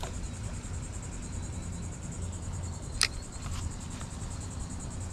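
Steady high-pitched insect trilling with a fine even pulse, and one sharp click about three seconds in.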